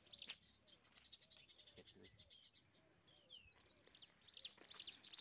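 A bird calling over and over with short, high chirping bursts, about two or three a second. The calls break off just after the start and come back near the end, with softer twittering and a falling whistle in between.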